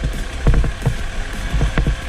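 Off-road motorcycle engine running over rough ground, a steady low rumble broken by frequent irregular knocks and thumps from the bumpy trail.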